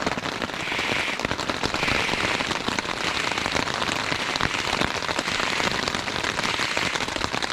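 Rain shower falling steadily, a dense scatter of individual drops hitting a nearby surface. A soft hiss swells and fades about once a second during the first few seconds.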